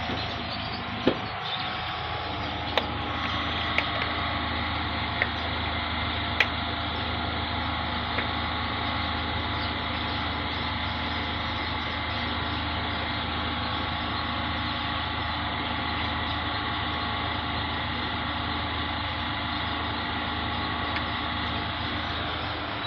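A steady mechanical hum, engine-like, with several sharp clicks in the first few seconds.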